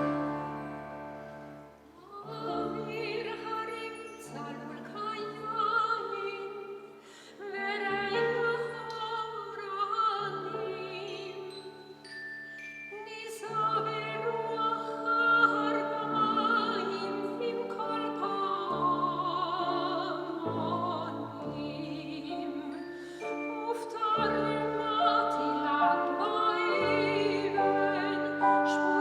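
Small klezmer ensemble playing a slow song: a sung melody with vibrato over piano and acoustic bass, with a brief lull about two seconds in before the phrase resumes.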